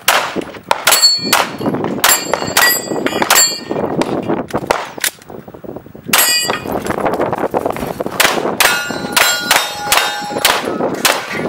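Rapid 9mm pistol shots, each answered by the clang of a steel target plate ringing after the hit. The shots come in two strings, split by a lull of about a second and a half near the middle.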